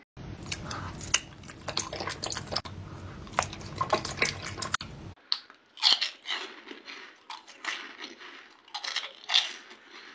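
Close-up eating sounds: chewing and biting with many short wet clicks and smacks, in two stretches that change abruptly about five seconds in. In the second stretch soft gummy candies are bitten off the fingertips and chewed.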